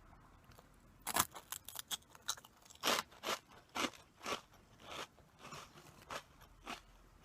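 Close-miked crunching and chewing of food. A sharp cluster of crunches comes as a bite is taken about a second in, followed by steady chewing crunches about two a second that grow fainter.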